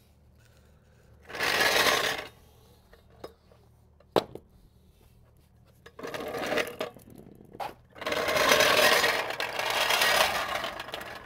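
Metal trolley jack rattling and clanking as it is wheeled over a concrete floor, in short bursts and then a longer, louder stretch near the end, with a single sharp knock about four seconds in.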